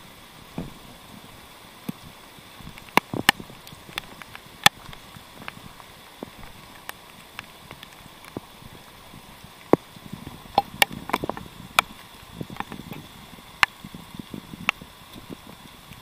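A hiker's footsteps on a root-covered dirt trail: irregular sharp clicks and knocks, bunched more closely from about ten seconds in, over soft rustling and a faint steady high hum.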